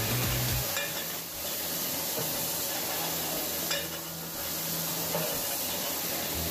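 Bottling-line machinery running: a steady hiss-like mechanical noise with a couple of faint clicks as filled whiskey bottles pass along the conveyor through the capper.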